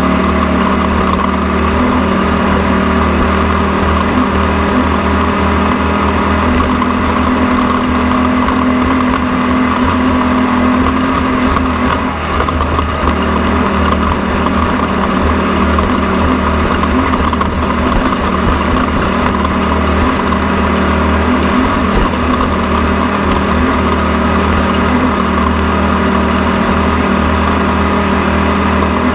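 An engine running at a steady speed, with a brief dip in level about twelve seconds in.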